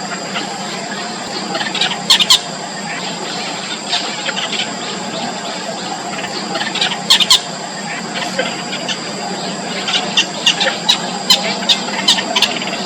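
Young nestling birds' shrill begging squeaks, in short clusters about two seconds in and again around seven seconds, then a quick run of them in the last three seconds, over a steady background hiss.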